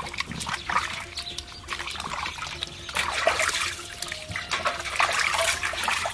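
Water sloshing and splashing in a large stainless-steel basin as a plucked whole chicken is washed by hand. Water trickles and drips back into the basin as the bird is lifted out, swelling and fading unevenly.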